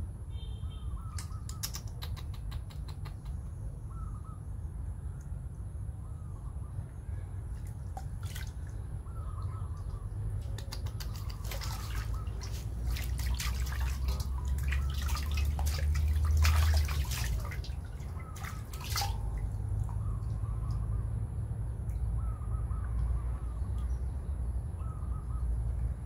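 Water splashing and dripping in a metal basin as a baby monkey is washed by hand, loudest about halfway through. Short high calls recur every couple of seconds over a steady low rumble.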